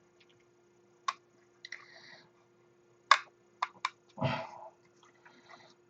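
Light clicks and taps of small plastic model-kit parts being handled and pressed into place, with a short scrape about 2 seconds in.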